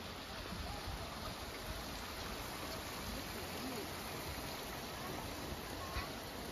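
Steady rushing hiss of a water jet spraying into a lake, with faint distant voices.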